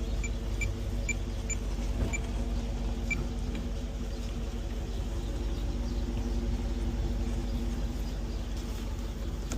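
Car engine running steadily, a low hum, with a few short high ticks in the first three seconds.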